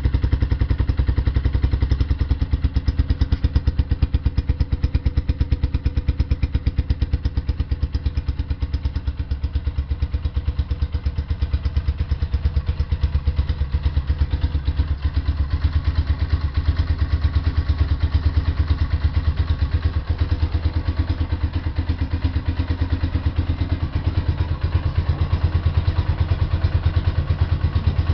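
Suzuki Yes single-cylinder 125 cc motorcycle engine idling steadily through an aftermarket ML Competition Roncar 45 cm exhaust, a loud, even, fast exhaust pulse.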